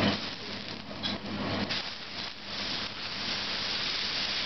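Steady hiss of food sizzling on a hot griddle, with a few faint clicks and taps about a second in. A low hum fades out just under two seconds in.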